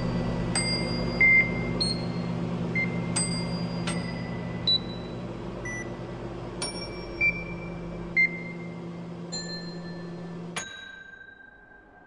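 Microwave ovens running with a steady hum, while short keypad beeps at different pitches and clicks followed by ringing dings go off every second or so. About ten and a half seconds in, a last click and a drawn-out tone come as the hum cuts off, and the sound fades away.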